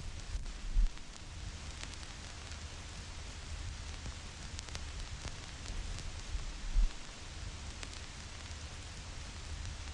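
Vinyl record surface noise: a steady hiss with scattered crackles and pops from the stylus riding the groove, and two louder low thumps, about a second in and again near seven seconds.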